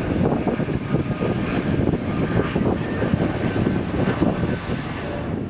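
Boeing 787-9 Dreamliner's twin turbofan engines at takeoff thrust as it climbs away after liftoff: a loud jet rumble with a rapid, ragged low crackle.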